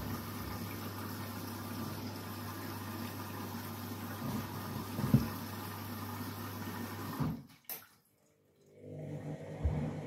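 Front-loading washing machine running a rinse with heavy suds from washing-up liquid: a steady motor hum with water sloshing in the drum. The sound drops out suddenly for about a second and a half near the end, then comes back.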